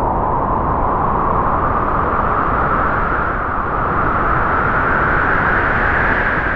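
A strong gust of wind blowing, a steady rushing whoosh whose pitch climbs slowly as it goes.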